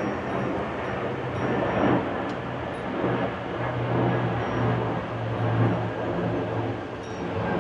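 Strong wind gusting and rushing over the microphone, swelling and easing every second or so, with a steady low hum underneath.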